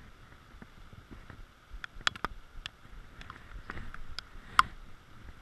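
Heavy rain falling, a steady hiss, with a scatter of sharp taps close to the microphone, the loudest about four and a half seconds in.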